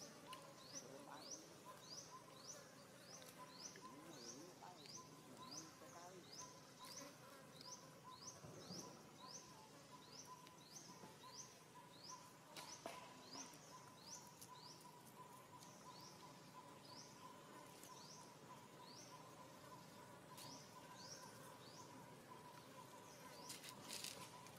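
Faint, quiet forest background: a short high chirp repeats about twice a second over a thin steady whine, with a brief scratchy noise near the end.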